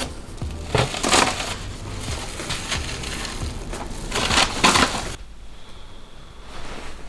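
A paper sweet bag crinkling in several short, loud bursts as pick-and-mix sweets are filled into it. About five seconds in the sound drops to quiet room tone.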